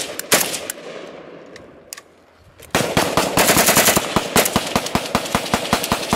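A few single rifle shots, a short pause, then a long fully automatic burst from an AK-pattern rifle at about ten shots a second.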